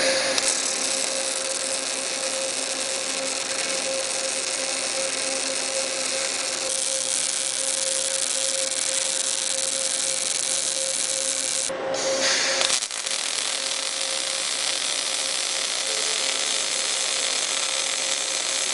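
Panasonic TAWERS robot's Active MAG welding arc at about 120 A, a steady hissing crackle with a constant hum underneath. There is a short louder stretch about twelve seconds in.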